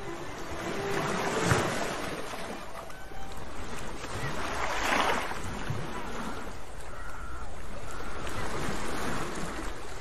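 Sea surf washing ashore, swelling about a second and a half in and again around five seconds.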